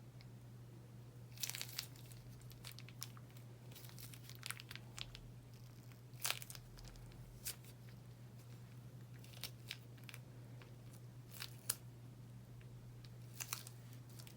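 Slime being squeezed and stretched by hand, making irregular sticky crackles and small pops, with a few louder snaps, over a steady low hum.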